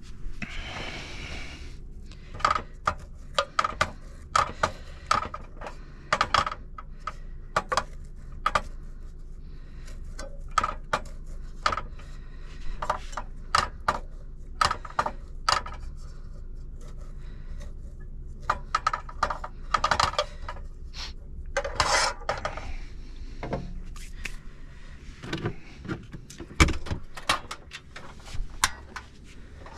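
Items being handled and stowed in a truck cab's storage compartments: many short clicks, knocks and rattles of plastic and metal objects, with rustling, over a steady low hum.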